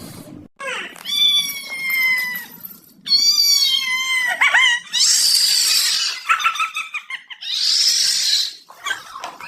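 A cat giving two long, drawn-out meows, the second falling away at the end, followed by two harsh, breathy bursts.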